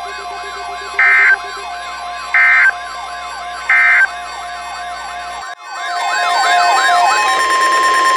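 Three short bursts of Emergency Alert System end-of-message data tones, a harsh digital screech, about 1.4 s apart, over a fast warbling siren tone and a steady tone. About five and a half seconds in it cuts to a louder siren-like warble with steady tones held under it.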